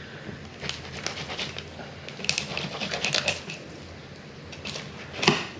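Fillet knife slicing along a red porgy on a plastic cutting board, small scraping and ticking strokes as the blade works the fillet off the bones, with a cluster of them in the middle and one louder knock near the end.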